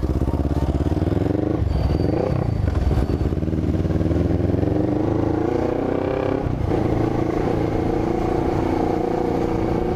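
Honda CB500 parallel-twin motorcycle engine running, its pitch rising twice, about two seconds in and again around six seconds in, then holding steady.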